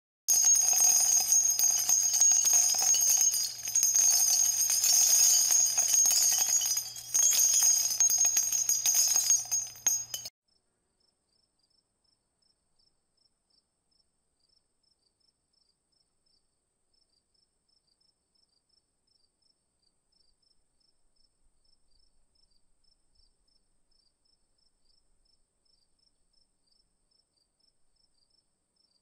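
A loud, high-pitched steady ringing shimmer that cuts off suddenly about ten seconds in. After it comes near silence with faint, rapid insect chirps.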